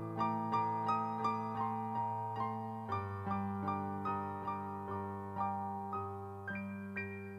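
Solo piano playing slow, gentle music: a steady stream of notes, a little under three a second, over held bass notes that change about three seconds in and again near the end.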